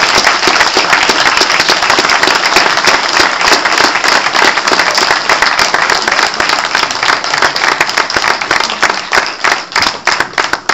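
Audience applause: dense, steady clapping from many people, thinning near the end into fewer, separate claps.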